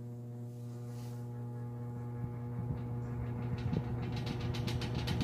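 1955 Kenmore box fan's electric motor running on its low setting: a steady hum that slowly grows louder as the fan comes up to speed. A fast ticking rattle joins in over the last couple of seconds.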